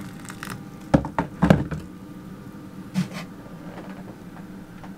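Water being poured from a kettle into a ceramic mug trails off. Then come a few sharp knocks and clunks, a cluster about a second in and one more near three seconds, as the kettle and mug are handled on a wooden counter.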